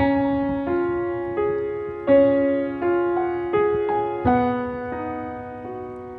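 Slow, gentle piano music: single notes struck about every three-quarters of a second, each ringing and fading, growing softer near the end.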